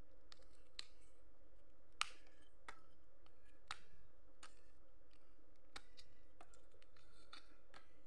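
Chestnut shells cracking and snapping as a knife blade cuts and pries them off the nuts: irregular sharp clicks, the loudest about two seconds in.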